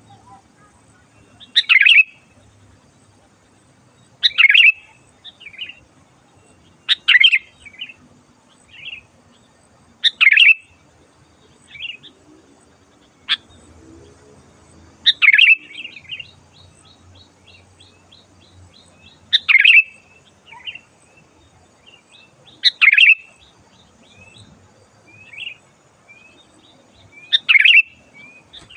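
Sooty-headed bulbul (kutilang) calling loudly: short, bright phrases repeated about every three seconds, with softer single notes between them and a quick run of repeated high notes about halfway through.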